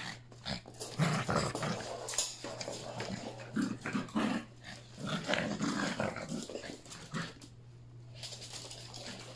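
Yorkshire terrier puppies growling in play, in short irregular bursts that die down about eight seconds in.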